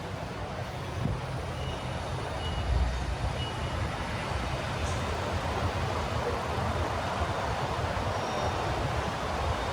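City street traffic noise with a vehicle engine rumbling, loudest about three seconds in. Early on there are three short, faint high beeps about a second apart, like a truck's reversing alarm.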